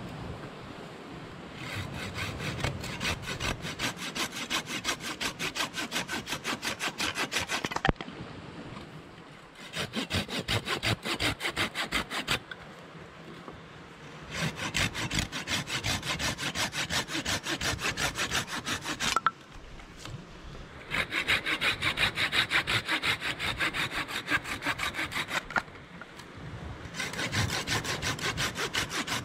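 Silky folding pruning saw cutting through a birch branch: quick, even back-and-forth rasping strokes in five bouts, with short pauses between them.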